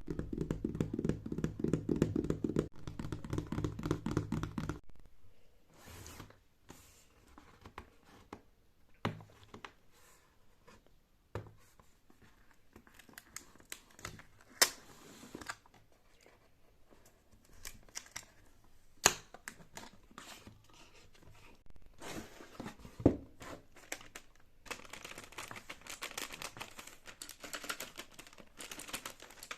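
Cardboard and plastic keyboard packaging being torn open and crinkled, with scattered sharp knocks and thunks as the box and its parts are handled and set down, and a stretch of steady rustling near the end. For about the first five seconds a low drone with steady tones plays, then stops.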